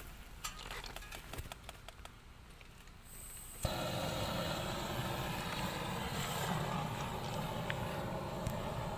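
Exothermic welding charge for a rail bond wire igniting: about three and a half seconds in, a sudden onset into a steady, loud rushing hiss as the weld powder burns in the mould, after a few faint clicks.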